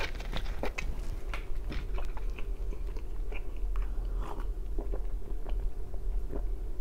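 Close-up mouth sounds of a man chewing and then drinking water from a glass, with many small scattered clicks and smacks.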